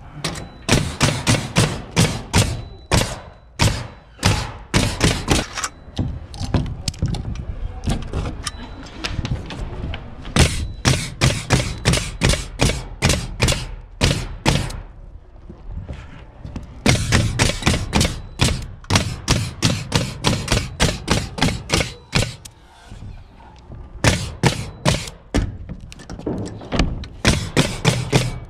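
Pneumatic nail gun shooting nails through plywood and OSB roof sheathing into the trusses, firing in quick runs of about three shots a second with short pauses between the runs.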